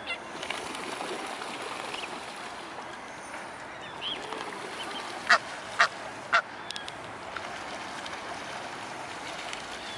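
Waterfowl calling: three short, loud honks about half a second apart a little past halfway, with a few faint high calls before them. The likely callers are the Egyptian goose family grazing there.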